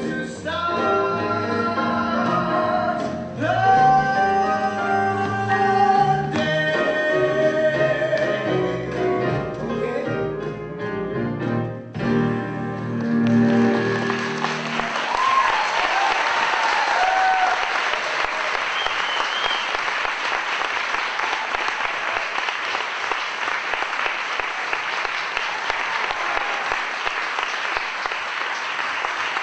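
Show-tune music playing through its closing bars, ending about 14 seconds in, then an audience applauding with a few whistles and whoops.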